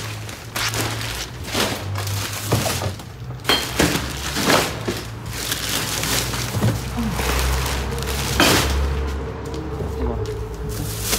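Irregular knocks and clatter of hard objects being handled and bumped, over a steady low hum.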